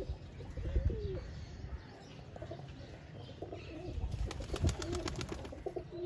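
Domestic pigeons cooing in short, low, repeated notes, with gusts of wind rumbling on the microphone and a quick flurry of sharp clicks about four seconds in.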